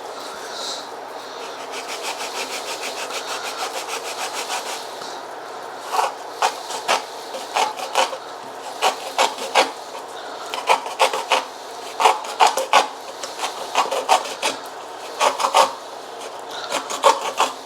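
Kitchen knife scraping and rasping: a run of quick, even strokes for a few seconds, then slower, irregular scrapes and clicks.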